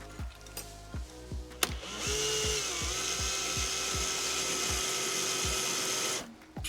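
Electric drill spinning a piston ring grinder's wheel while a ring's end gap is filed to size: a steady motor whine with a grinding hiss for about four seconds, starting about two seconds in, its pitch dipping briefly early on. Background music with a steady beat plays underneath.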